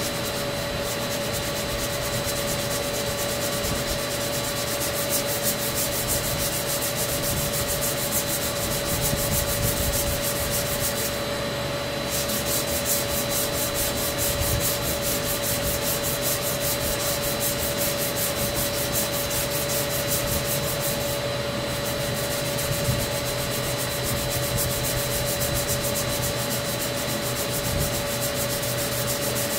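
Rupes random orbital sander running at an even pitch, its pad grinding body filler smooth on a car panel to prepare it for primer.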